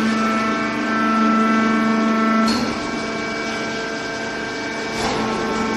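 Hydraulic baler press running, its motor and pump giving a steady pitched hum. About halfway through, the strongest low tone cuts out and the sound drops, with a brief noisy burst; another short burst comes near the end.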